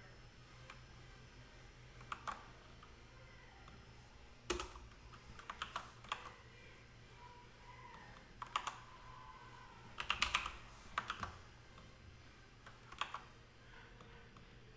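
Computer keyboard keystrokes in scattered short runs, a few keys at a time with pauses between, over a faint steady low hum.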